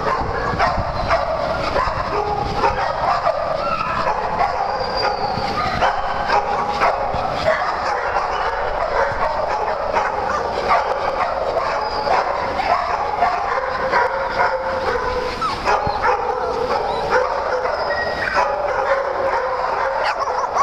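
A pack of small dogs barking and yipping over one another without a break, a dense, steady din of overlapping barks.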